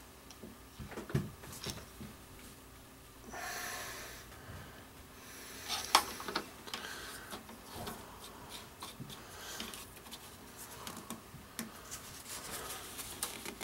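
Faint handling sounds of a lawn mower's oil dipstick being taken out and checked: scattered small clicks and rubs, a brief rustle about three seconds in, and one sharp click about six seconds in.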